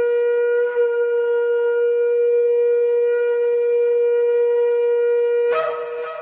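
A shofar blown in one long, steady held blast, with a small waver about a second in. Near the end the note cracks up to a higher, rougher tone and fades away.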